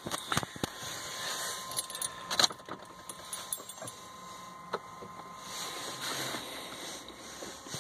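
Handling noise from a phone being moved around inside a car: a few sharp clicks and rustling, with a faint steady whine underneath.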